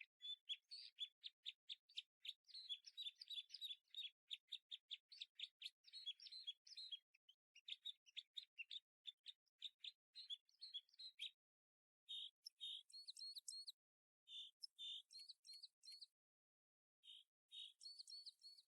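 A bird chirping and twittering faintly in fast runs of short, high notes, breaking off into shorter phrases with pauses in the second half.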